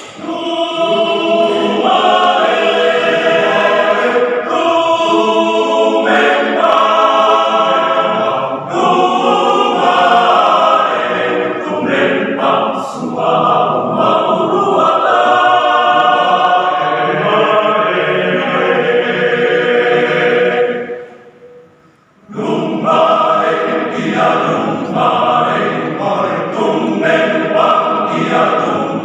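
Men's choir singing in parts, sustained chords led by a conductor, breaking off for about a second near the two-thirds mark before resuming.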